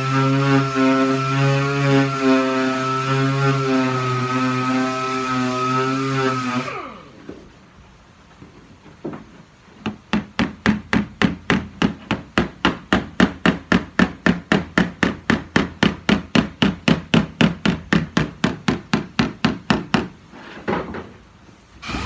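A power tool runs with a steady hum, then spins down with falling pitch about seven seconds in. After a pause, a hammer strikes steadily about four times a second for roughly ten seconds, typical of hammering dings out of a car body panel. The machine hum starts again right at the end.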